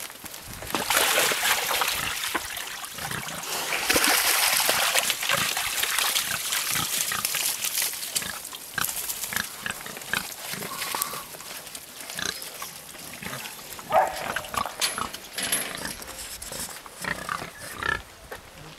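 Mangalica pigs grunting and moving about in a muddy wallow, with wet mud and water noise. It is busiest and loudest in the first half, then thins to scattered short grunts and squelches, with one sharp louder sound a little past the middle.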